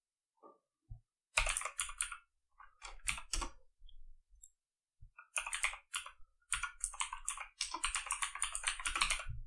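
Computer keyboard typing in quick bursts of keystrokes, with short pauses between bursts and a longer, denser run near the end.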